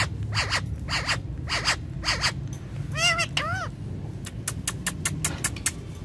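Rose-ringed (Indian ringneck) parakeets calling: a series of short harsh squawks, then two short chirps that rise and fall about three seconds in. Near the end comes a quick run of sharp clicks.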